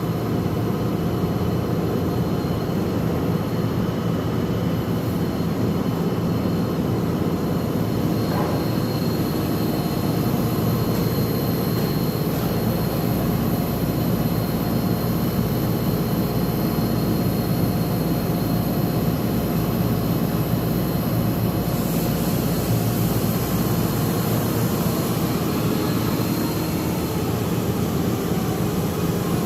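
A machine running steadily: a continuous, even drone with a faint high whine over it.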